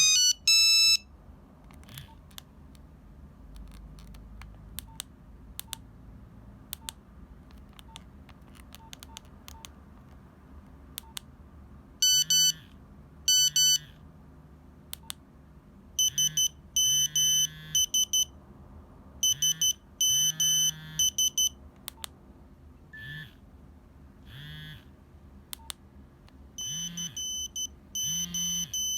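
Nokia 3395 monophonic ringtone, a shrill buzzer-like melody, cut off about a second in. A stretch of sparse soft clicks follows. From about twelve seconds in the phone plays a run of short beeping tone snippets, each under two seconds with brief gaps, like ringtones being previewed one after another.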